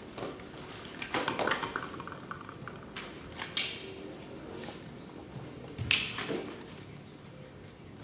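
Long-handled farm tools striking the stage floor as actors mime hoeing a field: a quick cluster of knocks about a second in, then single sharp strikes about three and a half and six seconds in.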